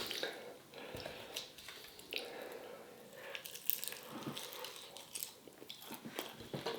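A person biting into and chewing oven-roasted chicken wings with crispy skin, with soft irregular crunches and mouth noises.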